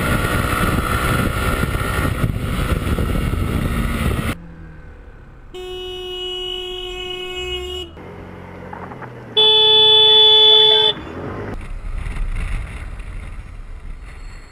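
Motorcycle running at road speed with heavy wind noise, cut off after about four seconds. Then a vehicle horn sounds a steady held note for about two seconds, and a few seconds later another horn, higher and louder, blasts for about a second and a half. Traffic and engine noise follows.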